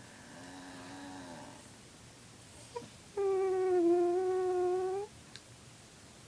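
A dog trying to howl: a soft, low, falling howl-whine near the start. Then, about three seconds in, a loud, steady held note of about two seconds, the owner's own howl-like vocal sound.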